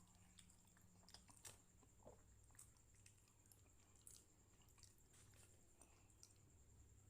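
Faint chewing of soft, sweet martabak manis: scattered small wet mouth clicks over a steady low hum.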